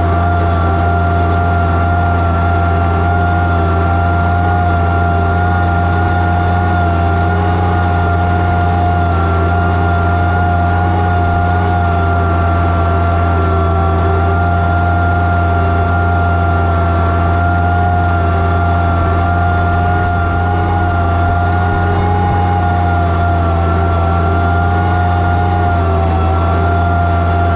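Oliver 77 tractor's six-cylinder engine running steadily under load, pulling a plow through the ground, with a steady high whine above the low engine hum.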